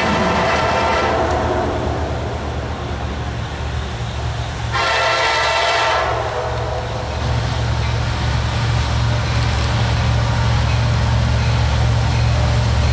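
Air horn of an approaching CSX freight train's lead locomotive, a rebuilt SD70AC, sounding twice: one blast trailing off in the first second or so, and another of a little over a second about five seconds in. A steady low rumble from the locomotives' diesel engines runs beneath and grows as the train nears.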